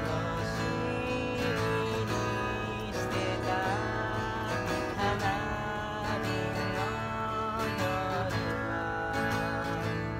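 A man singing with long held notes while strumming an acoustic guitar.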